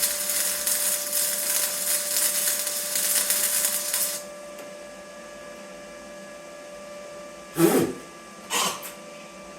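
Flux-core wire-feed welder arc crackling steadily, cutting off abruptly about four seconds in. A quieter steady hum remains after it, with two short louder sounds near the end.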